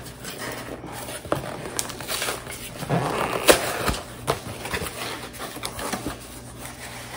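Packaging being handled and opened: rustling and crinkling with many small clicks and knocks, busiest in the middle, with one sharp snap about three and a half seconds in.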